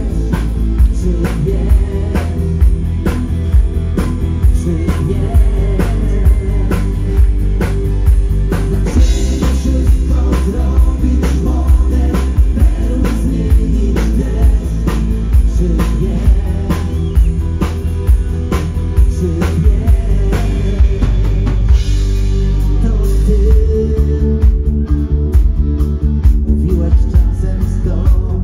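Live rock band playing loud over a stage PA: a drum kit keeps a steady beat under bass and electric guitar, with a male voice singing.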